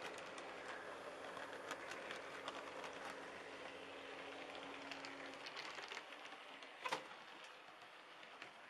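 Model railway trains running on the track: a faint steady hum with a patter of small clicks from the wheels over the rail joints. The hum stops about five seconds in, and one sharper click comes about seven seconds in.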